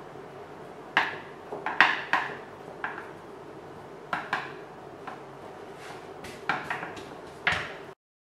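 A wooden rolling pin knocking and clacking on a worktop as a sheet of pasta dough is rolled up around it: about ten sharp knocks in uneven clusters over a faint steady hum, cutting off abruptly near the end.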